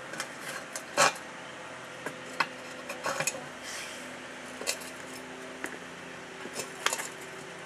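Sharp metal clanks and clinks at uneven intervals, the loudest about a second in: a rebar bar knocking and scraping against the wheel rim while prying the tire bead off.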